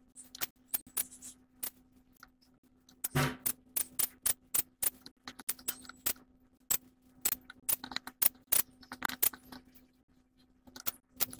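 Irregular sharp clicks and taps, coming in quick clusters, over a steady low hum, with a louder knock about three seconds in.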